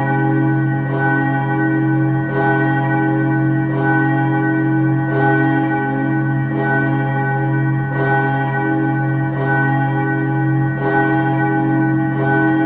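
Steel church bell ringing, its clapper striking evenly about every one and a half seconds, nine strokes, with the bell's deep hum sounding on between strokes.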